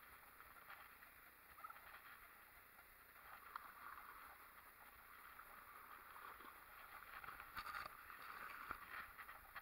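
Faint water splashing as a large hooked Atlantic salmon thrashes at the surface near the bank. The splashing is strongest near the end, as the fish is brought to the landing net.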